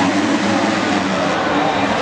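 Dirt bike engines running and revving at a Supercross race, under a dense, steady wash of track noise.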